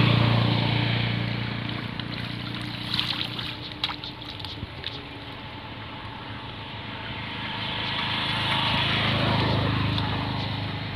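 Water trickling and splashing as a mesh lift net on bamboo poles is raised and worked in shallow water, with a few small clicks a few seconds in. Under it runs a steady low hum that swells near the start and again near the end.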